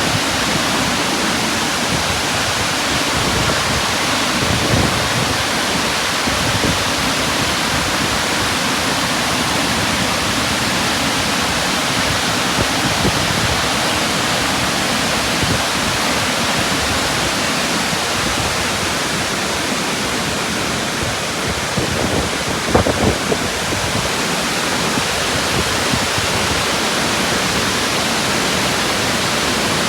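Steady rushing roar of Burney Falls, a 129-foot waterfall, with a brief low thump about two-thirds of the way through.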